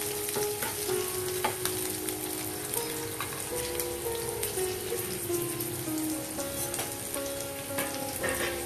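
Sliced onions, green chillies and curry leaves with whole spices sizzling and crackling in hot oil in a frying pan, with a spatula stirring them briefly at the start: the onion-and-spice base for an egg biryani masala being sautéed.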